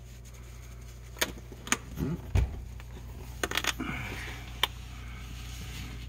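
Handling noise: scattered sharp clicks and taps, a dull thump a little over two seconds in, and a brief rustle around four seconds, as a hand reaches in to a blue-and-gold macaw sitting on its nest towel.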